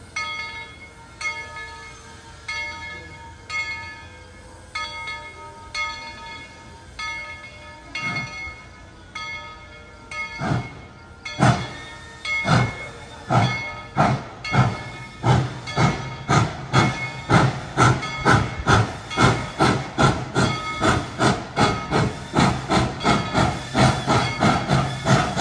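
A steam locomotive's bell clanging about once a second as the engine gets under way. About ten seconds in, exhaust chuffs start, slow at first and quickening steadily as the locomotive picks up speed, with the bell still ringing underneath.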